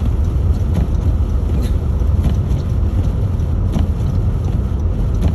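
Steady low rumble of an SUV driving through snow, engine and road noise heard from inside the cabin, with a few faint clicks.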